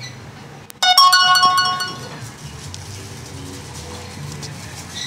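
Cartoon soundtrack heard through a TV speaker: one bright, pitched note starts suddenly about a second in and fades away over about a second, over a steady low hum.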